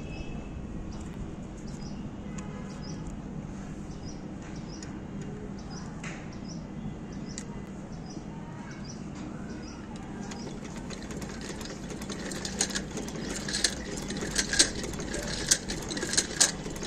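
Videocon sewing machine turning over after its shuttle has been cleaned and oiled, running freely. It gives a steady low hum with regular light ticks about twice a second, then louder, uneven clicks in the last few seconds.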